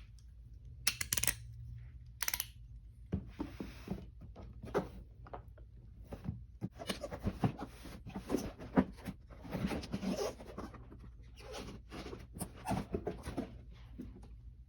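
Packaging being handled and opened: rustling, crinkling and tearing in irregular bursts, with small clicks and knocks throughout. There are two short, sharp rips near the start.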